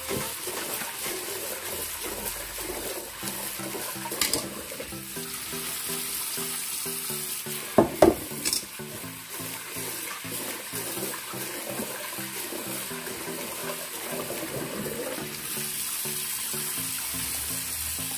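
Tap water running into a kitchen sink while rice is washed by hand in a pot, with a few sharp knocks of the pot, the loudest about eight seconds in. Background music plays underneath.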